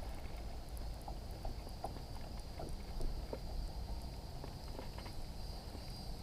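Insects droning steadily on one high pitch over a low rumble, with scattered faint light ticks.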